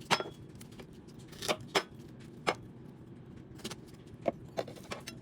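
Kitchen knife cutting the stems off strawberries and knocking on a cutting board, in a string of short, sharp, irregular knocks.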